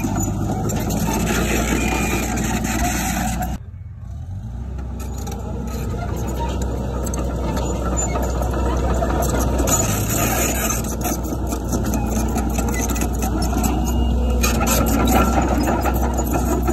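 Heavy diesel earthmoving machinery running under load: a steady low engine drone with clattering on top. The sound drops away abruptly about three and a half seconds in, then builds back up gradually.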